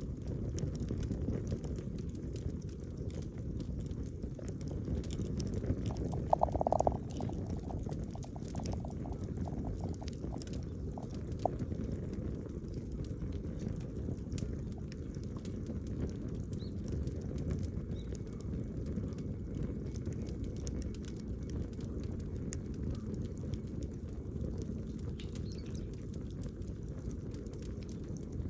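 Wood campfire crackling, with scattered sharp pops over a steady low rumble and one louder pop about six seconds in.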